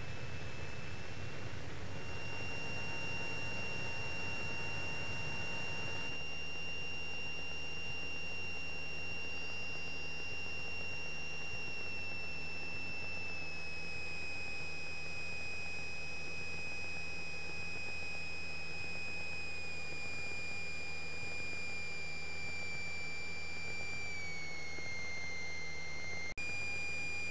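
Steady high-pitched electrical whine with faint overtones in a Cessna 172's intercom audio, over a muffled low engine drone while the plane taxis. The whine's pitch steps down a few times and jumps back up near the end, following engine speed as alternator whine does. The engine noise underneath drops a little about six seconds in.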